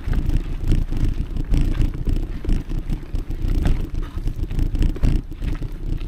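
Mountain bike riding a dirt and gravel forest trail: a heavy rumble of wind on the microphone, with the tyres and bike knocking and rattling over stones throughout.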